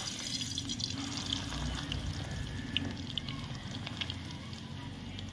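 Grated potato shreds sizzling in hot oil in a metal kadai: a steady hiss with many scattered sharp crackles.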